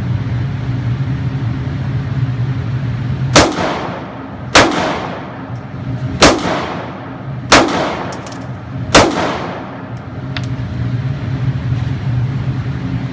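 Five handgun shots from 9mm and .40 pistols, fired about a second and a half apart, each followed by a ringing echo, with a steady low hum underneath.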